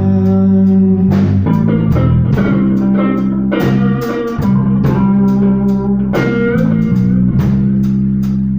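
A blues band playing an instrumental passage: guitar lines over a steady bass line and drum kit, with no singing.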